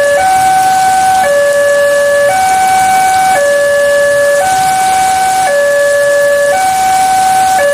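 Railway level-crossing warning alarm sounding: an electronic two-tone signal switching between a higher and a lower tone about once a second, the signal that a train is approaching and the crossing is closed.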